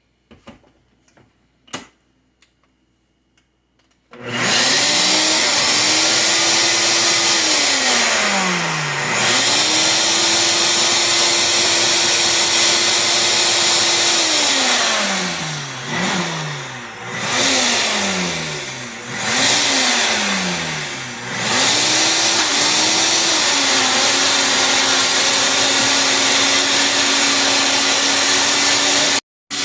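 A few small clicks, then about four seconds in a NutriBullet blender motor starts and runs loud and steady, blending silken tofu, garlic and lemon juice into mayonnaise. Several times its speed drops away and winds back up. Just before the end it cuts off for a moment and starts again.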